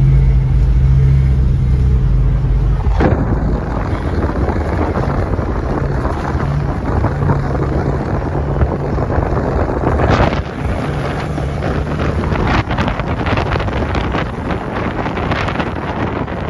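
A car engine running with a steady low hum, then from about three seconds in a loud rushing noise of wind on the microphone covers it.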